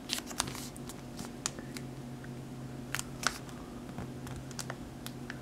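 Paper being folded and pressed flat by hand, giving irregular small crackles and clicks as the sheet is squashed and creased. A faint steady hum runs underneath.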